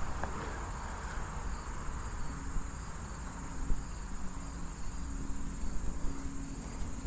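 Insects chirring in a steady, high-pitched drone, over a low outdoor rumble.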